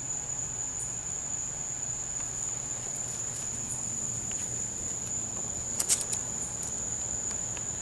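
Night insects singing one steady, unbroken high-pitched trill, with a few brief clicks about six seconds in.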